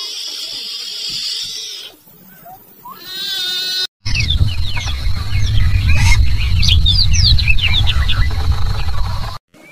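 Short clips of animal calls cut one after another: a brief bleat-like call a little after three seconds in, then many short, high chirping cries over a loud low rumble, which cut off suddenly near the end.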